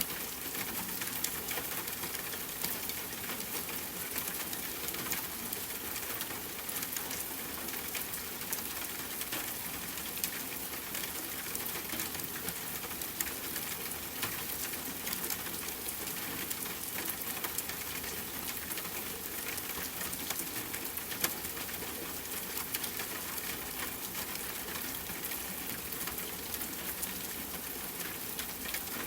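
Steady rain pattering on a tent, with a campfire crackling: an even hiss scattered with many small sharp pops.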